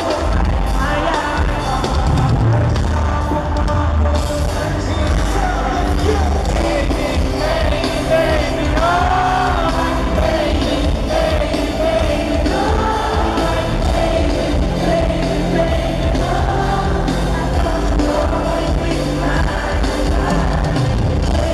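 Live pop music in an arena: a male singer's vocals over a steady electronic beat, played through the concert sound system.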